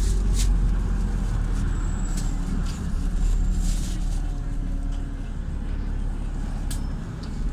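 Inside a LiAZ 5292.67 city bus on the move: the steady low rumble of its YaMZ-53624 compressed-natural-gas engine and road noise, with a few short rattles and clicks from the cabin.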